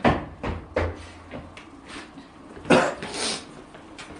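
A man sneezing: a few short breathy bursts in the first second, then one loud, explosive sneeze about two and a half seconds in, trailing off in a second smaller puff.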